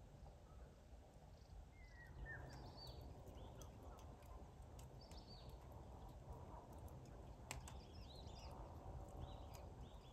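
Faint outdoor ambience: scattered short bird chirps and warbling calls, more of them from about two seconds in, over a low steady rumble, with a couple of faint sharp clicks.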